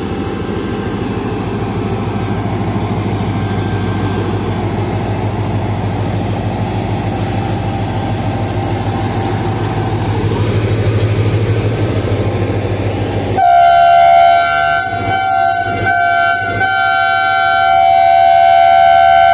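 HGMU-30 diesel-electric locomotive running with a low steady drone as it pulls slowly past. About 13 seconds in, its horn sounds a few short blasts broken by brief gaps, then a long held blast: the danger whistle, given because someone has pulled the alarm chain on the train.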